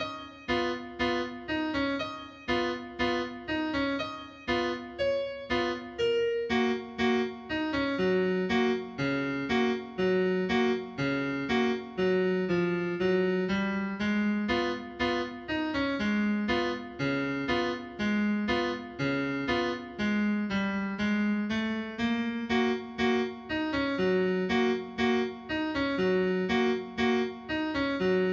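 Gentle instrumental background music: a keyboard tune of struck notes, each fading quickly, over a lower accompaniment.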